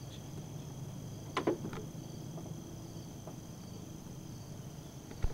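Steady high-pitched chirring of insects, with two brief sharp sounds about a second and a half in and a sharp click near the end.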